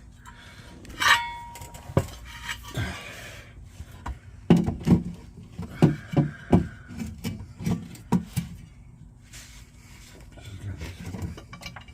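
Scattered knocks and clinks of metal parts and hand tools being handled while fitting an underbody plate, clustered in the middle with a brief ringing tone about a second in.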